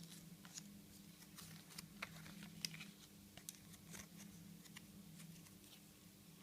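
Faint, irregular small clicks and ticks of a Kinder Joy surprise toy and its small plastic parts being handled, over a steady low hum.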